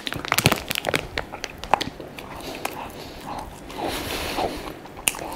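A person eating a croissant held in its plastic wrapper. A quick run of crisp crackles and clicks in the first two seconds gives way to softer chewing. The outer pastry is a little hard.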